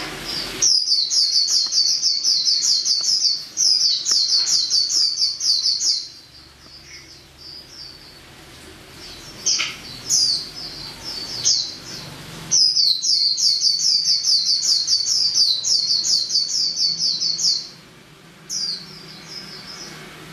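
Female white-eye (pleci) singing: a rapid, high twittering run of about five seconds, a pause broken by a few single chirps, then a second run of about five seconds, and one more short call near the end.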